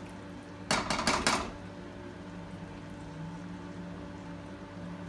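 A metal utensil clattering and scraping against a cooking pot in a quick run of knocks just under a second in, over a steady low background hum.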